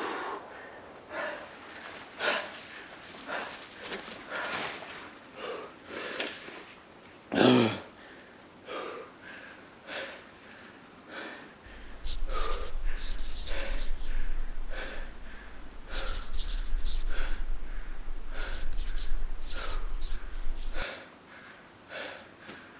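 A man breathing hard, one loud breath about every second. From about 12 to 21 seconds in, a louder noise with a low rumble on the microphone covers the breaths.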